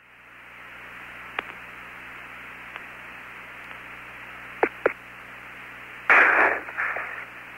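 Apollo 17 air-to-ground radio channel hissing with static, broken by a few sharp clicks and a loud rush of noise about six seconds in.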